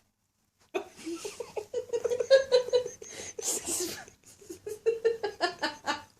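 A person laughing hard in quick, breathy bursts of giggles, starting about a second in, with a short break a little after four seconds.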